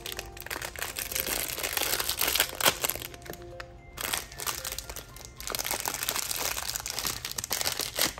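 A yellow plastic blind-bag wrapper crinkling and crackling in the hands as it is pulled open and crumpled, in irregular bursts. There are faint steady musical tones underneath.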